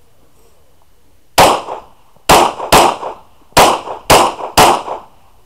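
Six shots from a Glock pistol: one about a second and a half in, then a quick pair, then a fast string of three. Each shot trails off in a short echo. This is a timed competition string fired from the draw.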